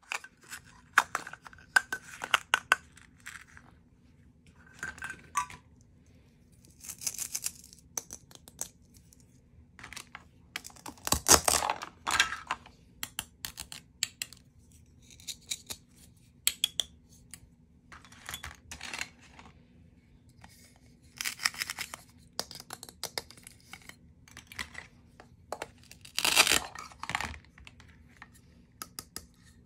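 Toy play-food fruit and vegetable halves being pulled apart at their Velcro joins: several short rips, one of the loudest a little over a third of the way in, between many clicks and taps of the plastic pieces being handled and set on the plastic cutting board.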